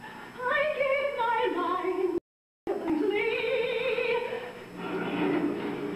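A woman's soprano voice singing a high, wavering line with vibrato. The sound cuts out completely for about half a second a little after two seconds in, then the singing resumes, and lower parts come in near the end.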